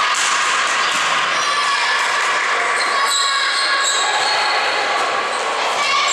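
Volleyball rally in a sports hall: the ball being struck and players moving on the court, over a steady din of voices.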